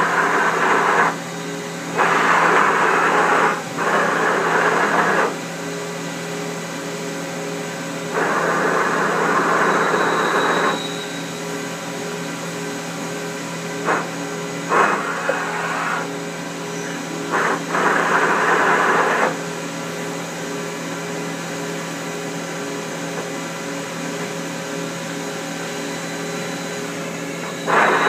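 Wasino LG-81 CNC gang-style lathe running: a steady machine hum with several fixed tones, broken about seven times by loud rushing, hissing bursts of one to three seconds each.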